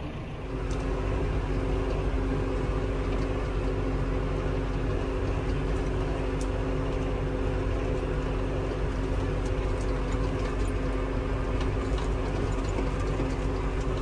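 John Deere 6120M tractor's diesel engine running steadily under load, heard from inside the cab as it drives across the corn stubble: a constant hum with a low rumble.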